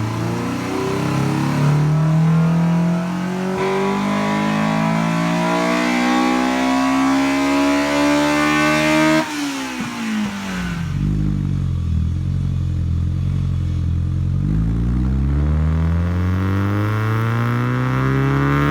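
Honda Civic's B18C four-cylinder engine revving under acceleration: the pitch climbs steadily for about nine seconds, then drops off suddenly and falls away. It holds steady for a few seconds, then climbs again near the end.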